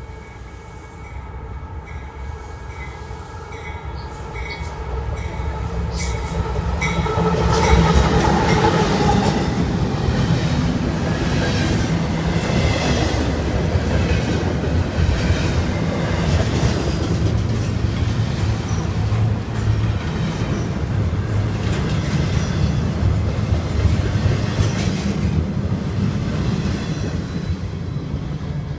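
Union Pacific double-stack intermodal freight train approaching and passing at speed. Its locomotives grow louder over the first eight seconds, then the container cars follow with a steady rumble, rhythmic wheel clatter and some wheel squeal over the rails.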